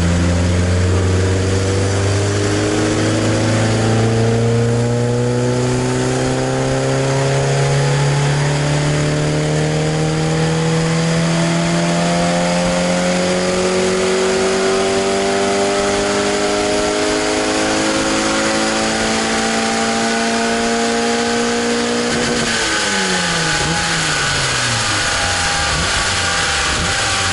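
Mazda MX-5 (NA Miata) race car's four-cylinder engine making a full-throttle pull on a chassis dyno: the revs climb steadily for about 22 seconds, then the throttle is lifted and the revs fall away quickly. A broad rushing noise runs underneath.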